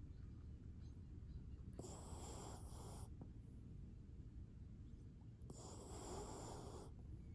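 Sleeping dog snoring faintly: two long, breathy snores about three and a half seconds apart.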